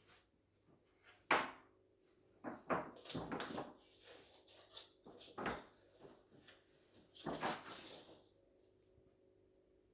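A handful of short, irregular knocks and scuffing rustles, the longest cluster a little before the middle and another near the end, then quiet room tone.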